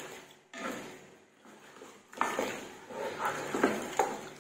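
A wooden spatula stirring raw chicken pieces in hot oil in a pot: a few separate strokes of scraping and sizzling, each starting sharply and fading.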